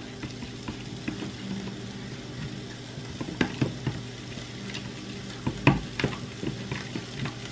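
Pork fat (salo) sizzling as it fries in a pan, with a few sharp clicks and knocks of a utensil stirring it against the pan, the loudest about two thirds of the way through.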